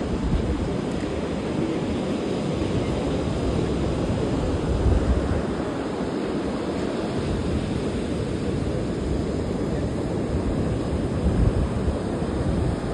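Rough surf washing onto a sandy beach in a steady roar, with wind buffeting the microphone in gusts, strongest about five seconds in and near the end.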